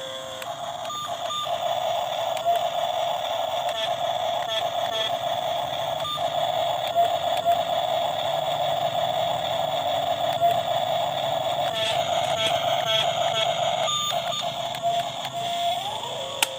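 Small electric motor of an RC excavator running with a steady high whine, pitch shifting slightly as it works, with scattered sharp clicks.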